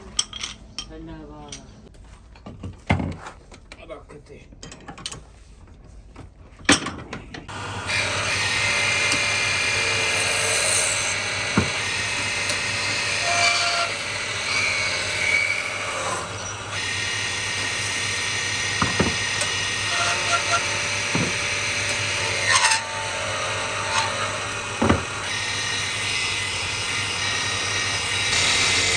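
Scattered knocks and clicks of wooden pieces, then about eight seconds in a woodworking power machine starts abruptly and runs steadily with a low hum, with occasional knocks over it.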